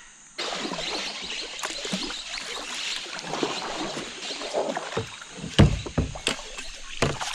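Kayak paddle strokes, the blade splashing and swishing through the river water, with a few sharp knocks on the kayak near the end.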